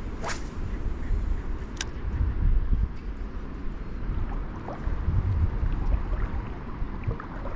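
Wind buffeting the microphone in gusts, over light water sloshing around the legs of someone wading in shallow water. There are two brief sharp sounds in the first two seconds.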